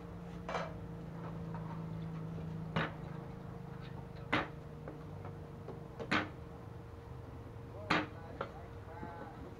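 A cleaver knocking on a wooden chopping board while cutting garlic cloves: five sharp strikes, one every one and a half to two seconds, with a few lighter taps between them.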